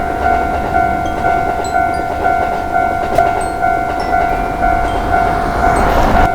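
Japanese level-crossing warning bell ringing "kan-kan" about twice a second over the low rumble of a passing train, with a rush of noise swelling near the end.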